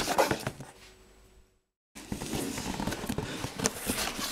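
A cardboard shipping box being handled, then, after a moment of silence, crumpled packing paper rustling and crinkling as hands dig into the box.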